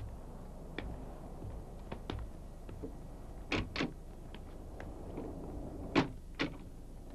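Scattered footsteps and light knocks as people move off across a room, over a faint steady hiss. The loudest come as a pair about three and a half seconds in and a sharper knock about six seconds in.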